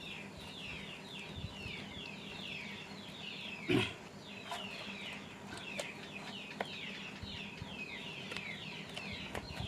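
Birds chirping in a rapid, continuous series of short falling calls, with a single knock just under four seconds in.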